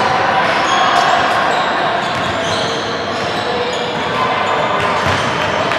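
Basketball gym ambience: indistinct voices of players and spectators echoing in the hall, with a few short high squeaks, as teams set up for a jump ball.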